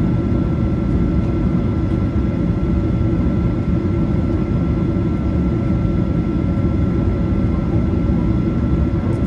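Cabin noise of a Boeing 737-800 taxiing, heard from a window seat over the wing: its CFM56-7B engines run at low taxi thrust. There is a steady, even rumble with a thin steady whine above it.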